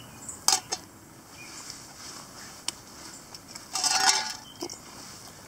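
A metal spoon knocking and scraping against a steel canteen cup of milk: a couple of sharp clicks early, one more click, then a short ringing metallic rattle about four seconds in.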